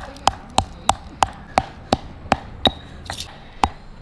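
Stone pestle pounding green cardamom pods in a stone mortar: sharp, even knocks about three a second, with the rhythm faltering briefly about three seconds in.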